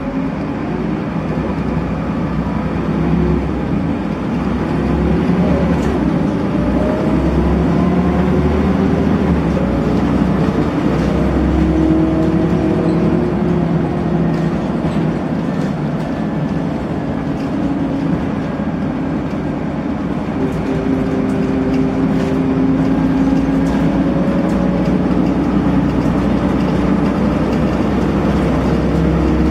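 Volvo B7RLE bus's rear-mounted engine and ZF automatic gearbox under way, heard inside the saloon: a steady engine rumble whose note rises and falls several times as the bus pulls away and works through the gears.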